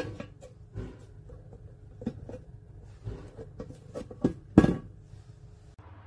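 Irregular knocks and clicks of a stainless steel food container and its plastic lid being handled, loudest at the very start and about four and a half seconds in.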